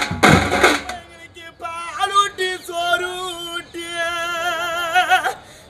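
A few loud drum strokes at the start, then a man sings a Tamil funeral lament alone, with no drums. He holds long notes with a wavering pitch and ends the phrase near the end.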